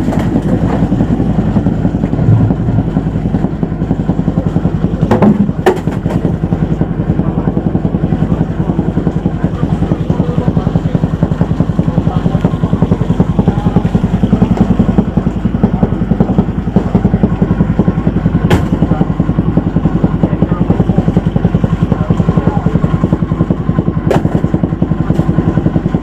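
A boat engine running steadily close by, its firing pulses fast and even. A few short knocks cut across it, about five seconds in, near 18 seconds and near 24 seconds.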